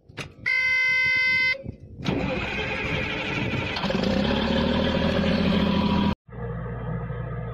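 A horn-like blast lasting about a second, then an engine starting and running loud for about four seconds, cut off abruptly, as a logo sound effect. After a brief gap comes the quieter steady low hum of an XCMG XE55DA mini excavator's diesel engine.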